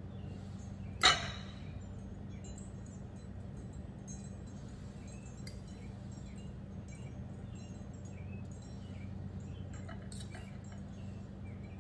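A metal kitchen utensil strikes the pot once about a second in: a sharp clink that rings briefly. A few faint taps and clicks of utensils follow near the end.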